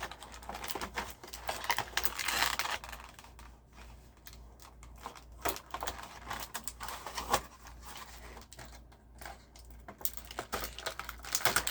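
Plastic model kit parts and their packaging being handled: irregular light clicks and rustles, busiest near the start and again near the end.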